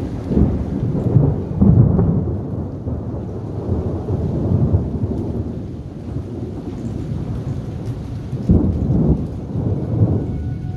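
Thunder rolling in a long, low rumble, with louder swells near the start and again about eight and a half seconds in, over the steady hiss of rain.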